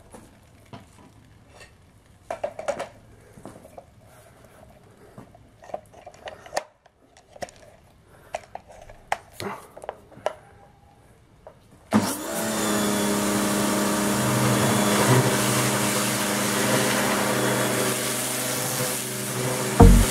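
Dedra 1900 W electric pressure washer: a few light clicks and knocks of handling the spray lance, then about twelve seconds in the motor and pump start abruptly. They run with a steady hum under the loud hiss of the water jet spraying a metal mudguard.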